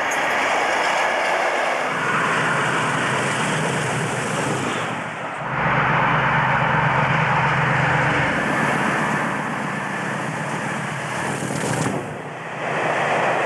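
English Electric Class 50 diesel locomotives, with their 16-cylinder engines, hauling passenger trains past at speed, with engine and wheel-on-rail noise. The sound changes abruptly about five seconds in and again about twelve seconds in, as one passing train gives way to another.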